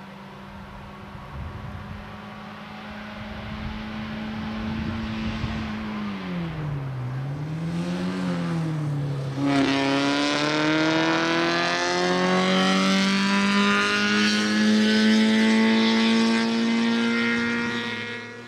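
Fiat 127 race car's four-cylinder engine running hard. Its note is steady at first, dips and swells twice near the middle, then climbs steadily and gets louder as the car accelerates, fading just at the end.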